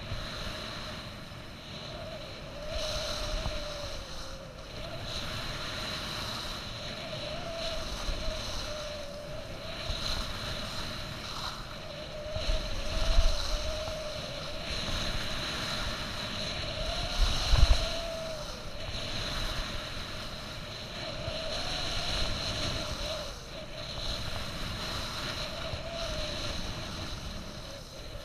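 Skis sliding and scraping over groomed snow at speed, with wind rushing over the camera's microphone. The noise swells and fades every couple of seconds through the turns, and a wavering whine runs underneath. Two heavy wind buffets come about halfway through.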